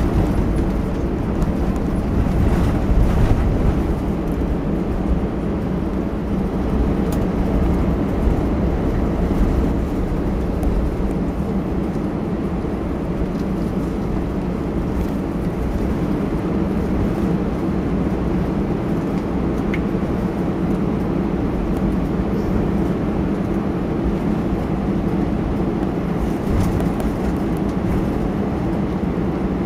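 Airbus A320 cabin noise while taxiing: the jet engines running at idle and the rumble of the landing gear rolling over the taxiway, heard from inside the cabin. The noise is steady, with a couple of brief louder bumps about two seconds in and near the end.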